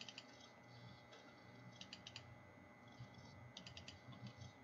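Faint computer mouse clicks in quick clusters of two or three, heard three times: double-clicks opening folders one after another.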